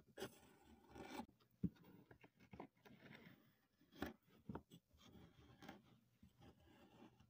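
Kinetic sand being cut and broken apart by hand: faint, crumbly scraping and crunching, with a few sharper clicks.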